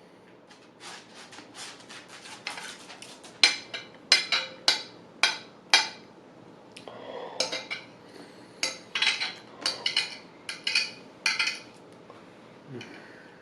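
Cutlery clinking and scraping against a plate while eating, as a run of sharp taps in two spells.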